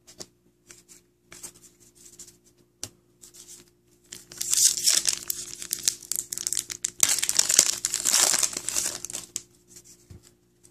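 Foil hockey-card pack wrapper being torn open and crinkled in the hands: light crackles at first, then loud tearing and crinkling from about four seconds in, easing off near the end.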